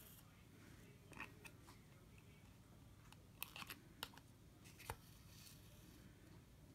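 Near silence broken by a few faint, scattered clicks and ticks, most in the middle stretch: small handling sounds from hand beadwork as a needle is pushed through the stiff backing and the thread is drawn through to tack down seed beads.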